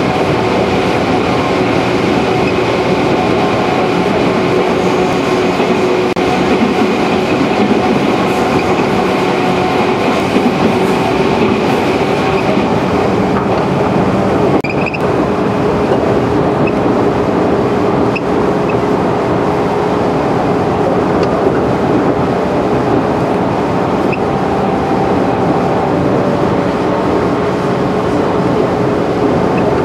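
Running noise inside a JR 211 series electric train: a steady rumble of wheels on the rails with a steady humming drone, and a few faint clicks midway.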